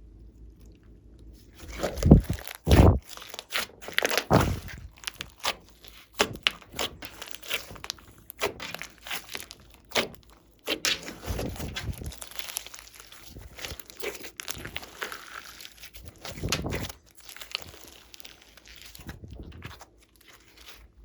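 Glossy slime being kneaded and stretched by hand, giving irregular sticky crackles, pops and squelches with short pauses between handfuls.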